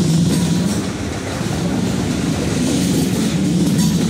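Freight train cars rolling past steadily on the rails.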